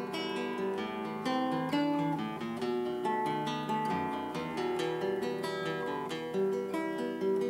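Acoustic guitar music: a melody of plucked notes following one another.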